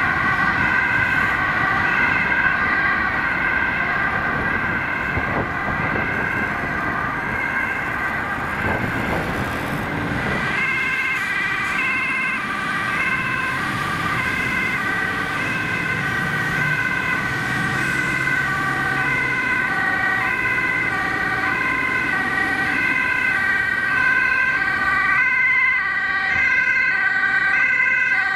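Dutch ambulance two-tone sirens wailing, stepping back and forth between a high and a low note. Heavier road and engine noise underlies them for the first ten seconds or so.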